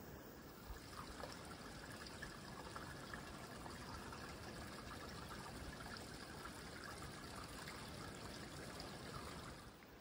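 A small forest stream trickling, a faint steady babble of water that fades just before the end.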